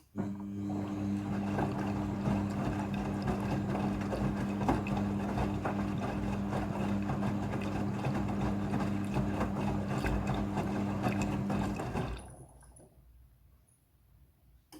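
Front-loading washing machine running in its rinse stage: a steady motor or pump hum with water rushing through it. It starts abruptly and shuts off about twelve seconds in.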